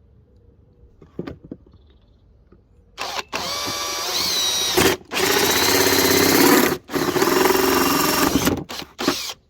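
Power drill running a small hole saw to cut a bolt hole. It comes in several runs from about three seconds in, the motor whine spinning up at the start of each run, with brief pauses between them.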